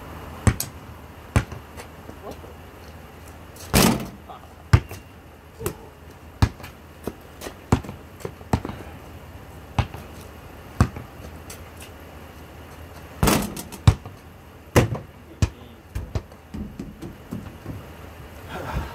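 Basketball bouncing off a hard court, a string of sharp single bounces at irregular intervals, with two louder, longer bangs about four seconds in and about thirteen seconds in.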